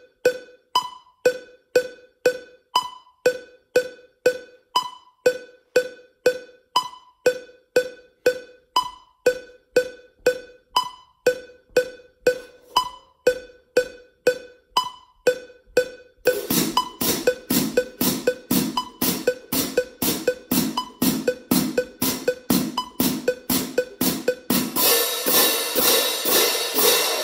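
A metronome clicking at 120 beats a minute, with a higher-pitched accented click every fourth beat. After about sixteen seconds a pair of marching crash cymbals comes in over the clicks, crashed and left to ring, louder near the end.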